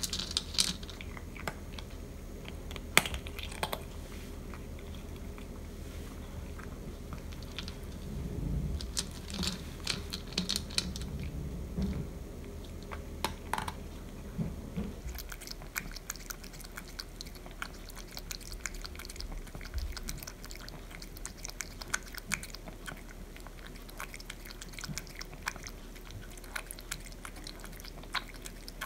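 A cat crunching and chewing dry kibble in many quick, irregular bites, eating hastily.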